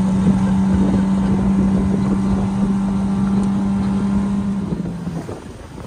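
Outboard motor of a Zodiac inflatable boat running at speed with a steady drone, easing off about five seconds in.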